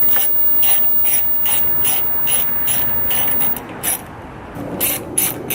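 Ratchet wrench clicking in short, repeated strokes, about two to three a second, with a brief pause a little after four seconds before it starts again.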